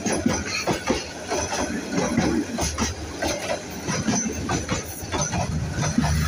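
Passenger train coaches running along the track: irregular sharp wheel knocks and clatter over a low rumble.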